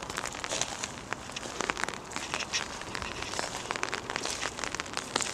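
Rain falling on an open umbrella overhead: a dense, irregular ticking of drops on the fabric.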